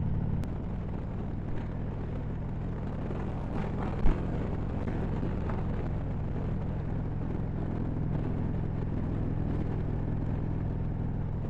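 Harley-Davidson Road Glide V-twin engine running steadily at cruising speed, with wind and road noise. The engine note drops slightly just after the start. A single brief thump about four seconds in.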